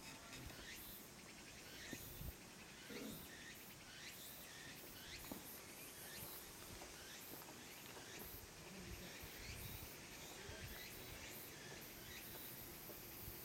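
Faint insects chirping: very high pulsed chirps repeating about one and a half times a second, with shorter falling chirps lower down, over a soft outdoor background.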